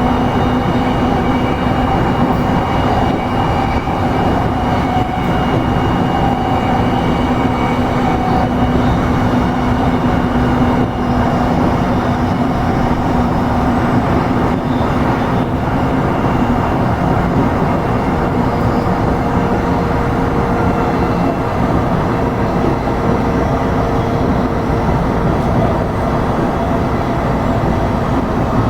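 Running noise of a JR East E233-series electric train, heard from inside the car while it travels between stations: a steady rumble of wheels on rail with a few faint, steady hums that fade in and out.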